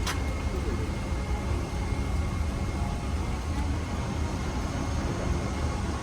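Steady rumble and hiss of a Boeing 777-300ER's cabin, from its engines and the airflow, with a faint steady whine above it. A short click right at the start.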